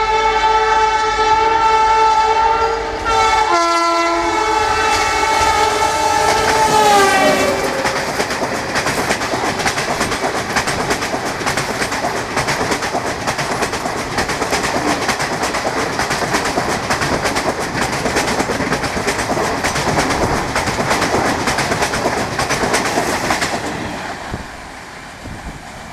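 A WAP-7 electric locomotive's horn is sounding, with a short break about three and a half seconds in, and its pitch glides down about seven seconds in. Then the express coaches pass at speed with a fast clickety-clack of wheels over the rail joints, fading out a couple of seconds before the end.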